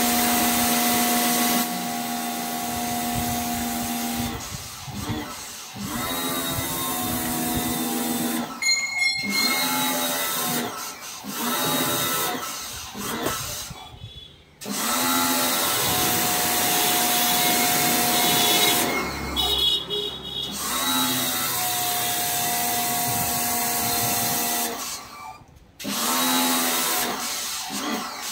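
Total 1400 W electric pressure washer running, its motor humming under the hiss of the high-pressure water jet. The hum drops out briefly about five times and starts up again each time.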